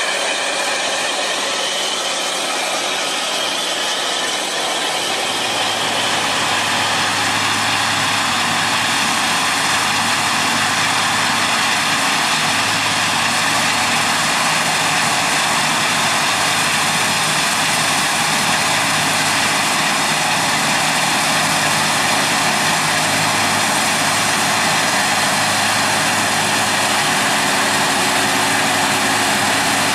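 A large tractor pulling a row planter for the first five seconds or so. Then a Case IH 9230 combine harvester runs under load while harvesting, its engine and threshing machinery making a steady drone with a low hum.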